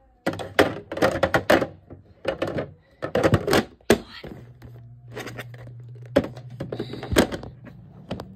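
Clatter of objects being handled and knocked about: a quick run of knocks and thuds for about four seconds. Then a steady low hum sets in, with two more sharp knocks.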